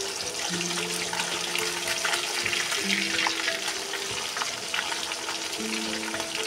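Small fish deep-frying in hot oil in an iron kadai: a dense, steady crackling sizzle. A steel spatula stirring and lifting the fish in the oil adds a few short clinks.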